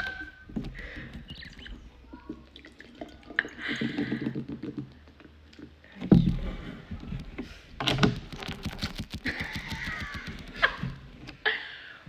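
A woman burping several times, short rough belches with the loudest about six seconds in, and small clicks and knocks between them.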